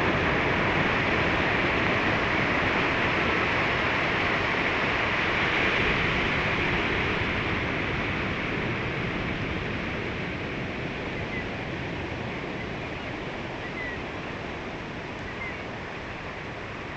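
Ocean surf rushing on the beach: a steady wash of breaking waves that slowly grows quieter.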